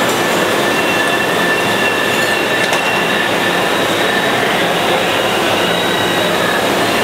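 Boston Green Line light rail train of Type-7 and Type-8 cars standing at an underground platform: a steady loud rush of running equipment and station noise, with thin high whining tones that come and go and a brief click about two and a half seconds in.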